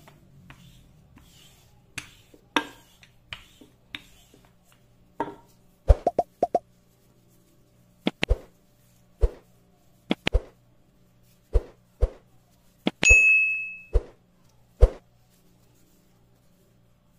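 Subscribe-reminder sound effect laid over the video: about a dozen sharp click sounds and one bell-like ding, ringing for about a second, near the end. Fainter light taps come in the first few seconds.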